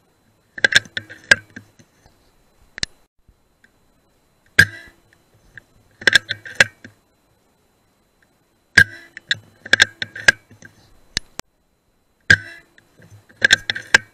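Three shots from a BSA R10 .177 PCP air rifle, each a sharp crack. Each shot is followed about a second later by a quick run of clicks as the rifle's action is cycled to load the next pellet.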